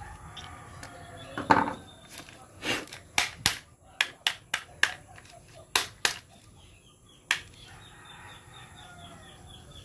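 About ten sharp plastic clicks and taps in quick succession as a cassette shell and screwdriver are handled on a wooden bench. Chickens cluck in the background, with one loud short squawk about a second and a half in.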